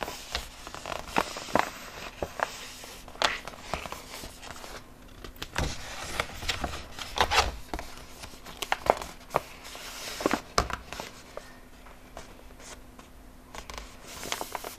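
Metallized plastic film of a box-bottom pouch crinkling and crackling irregularly as it is flexed and handled.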